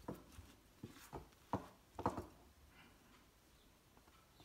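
Silicone spatula stirring almond flour and melted cheese in a glass mixing bowl: faint scrapes and light knocks against the glass, about six in the first two and a half seconds, then almost nothing.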